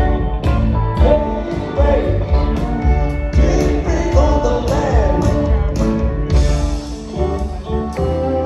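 A live rock band with electric guitars, bass and drums playing on stage, heard from among the audience in a theatre.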